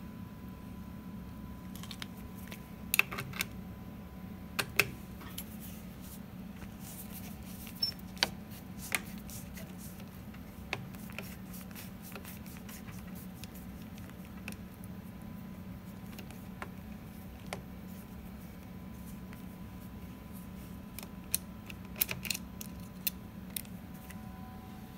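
Screwdriver and screws clicking and clinking against the steel slide rails of a Wincor Nixdorf ATM chassis as the fixing screws are taken out: scattered sharp metallic clicks, a few close together, over a steady low hum.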